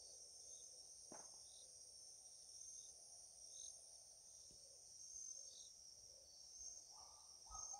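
Near silence: only a faint, steady high-pitched hiss in the background, with one faint click about a second in.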